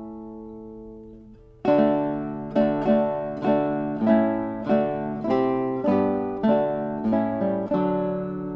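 Background music on a plucked string instrument: a held chord dies away, then about one and a half seconds in single notes and chords start again, plucked about every half second in a slow, even rhythm.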